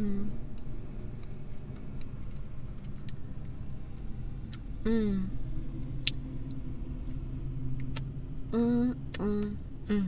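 A woman humming short closed-mouth "mmm"s of enjoyment while chewing a bite of chocolate peanut-butter brownie cookie. There is one hum about five seconds in and a few quick ones near the end, with light clicks from her mouth, over a steady low rumble.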